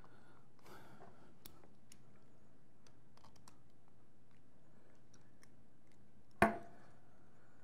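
Small plastic and metal parts of a prosthetic elbow assembly clicking faintly as they are handled and fitted by hand. One sharp, much louder click comes about six and a half seconds in.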